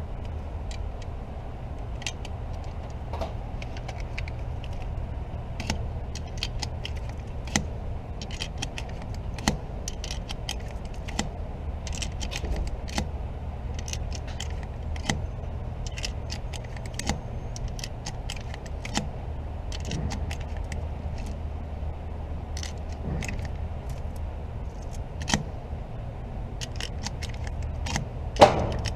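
Scattered light metallic clicks and rattles from handling gear at a shooting range, over a steady low hum, with one louder sharp bang near the end.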